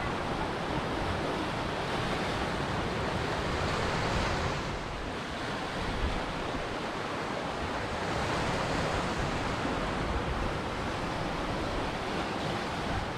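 Ocean waves breaking and washing ashore: a continuous surf rush that swells twice and briefly eases in between.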